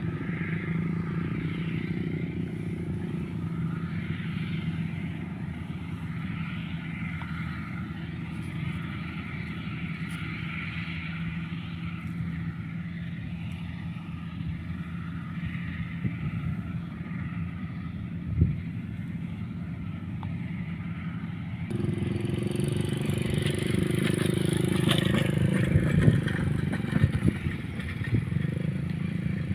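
An engine running steadily. About two-thirds of the way in the sound changes abruptly to a louder engine sound mixed with clattering and scraping knocks.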